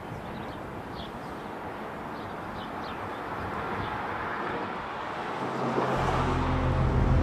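Steady urban outdoor rumble of vehicles, swelling a little about four to six seconds in, with a few short bird chirps in the first seconds. About six seconds in, a low, dark music drone sets in.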